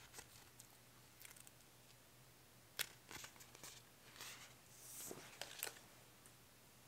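Faint paper rustles, crinkles and a few sharp clicks as a sheet of paper stickers is handled and flexed between the fingers. The sharpest click comes about three seconds in, and a short rustle follows about two seconds later.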